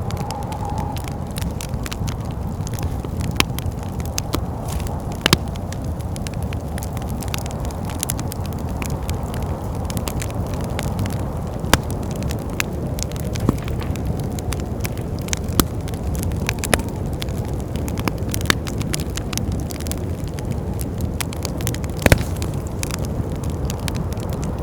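Wood fire crackling, with scattered sharp pops, the loudest a double pop near the end, over a steady low rumble of wind.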